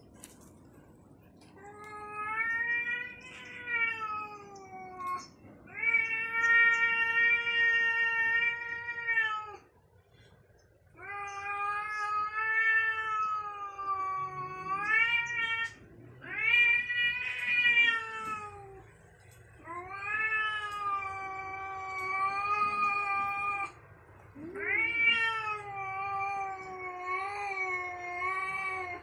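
A cat yowling: six long, drawn-out calls of three to five seconds each, wavering in pitch, with short pauses between them. This is the threatening caterwaul of a cat squaring up to another cat.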